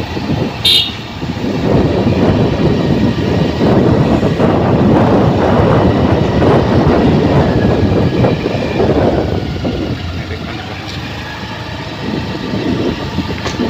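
Vehicle noise, loud and rough for several seconds, then easing to a quieter, steadier hum near the end.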